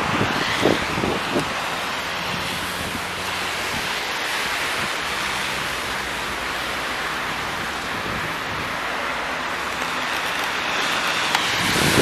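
Steady rushing of wind and passing traffic on a slushy, snow-covered street. A few low thumps come about a second in.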